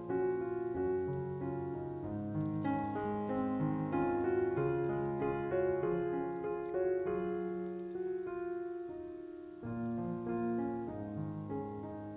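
Background piano music, a steady flow of notes and chords.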